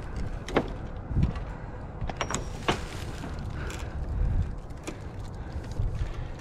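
Rummaging in a dumpster: several sharp knocks and clunks from the plastic dumpster lid and the trash being moved, over low handling noise and rustling plastic bags.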